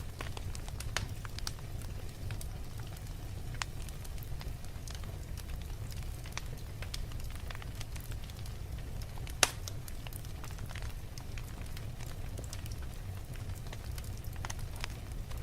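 Fire crackling: scattered sharp pops and snaps over a steady low rumble, with one louder pop about nine and a half seconds in.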